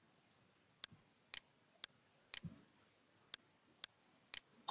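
Single sharp clicks of computer keys pressed one at a time, about two a second, eight in all, against near silence.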